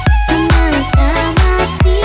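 Background electronic dance music with a steady kick drum, a little over two beats a second, under a gliding melody line.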